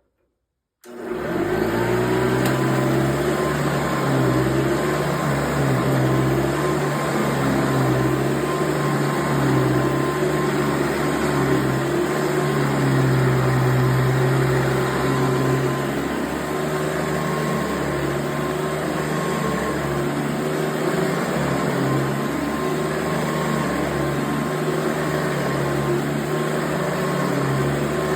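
Hoover Convertible upright vacuum cleaner switched on about a second in, its motor spinning up quickly and then running steadily with a constant whine over a low hum.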